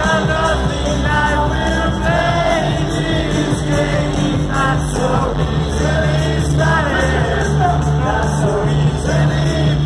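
Live rock band playing loud amplified music with sung vocals, heard from the audience through the PA.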